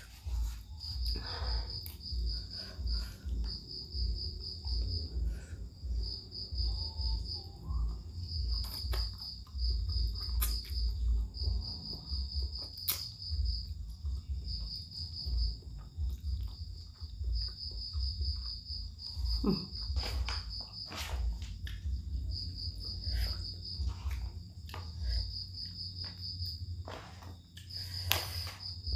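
A cricket chirping in repeated high trills, each about a second long with short gaps, over a low rumble. Scattered sharp clicks and knocks of eating and utensils come and go.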